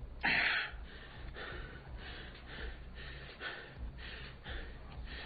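A person breathing hard: a sharp gasp about a quarter of a second in, then quick, ragged breaths over a low steady hum.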